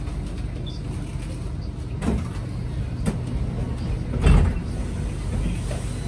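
Saloon sliding doors of a Kawasaki C751B metro train opening at a station stop, with knocks about two and three seconds in and a louder thump a little past four seconds, over the steady low hum of the standing train.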